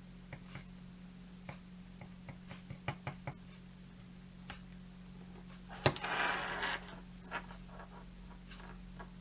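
Small sharp clicks and taps of hand tools and small metal parts being handled during bench soldering work, with a sharper click about six seconds in followed by a brief scraping rustle just under a second long. A steady low hum runs underneath.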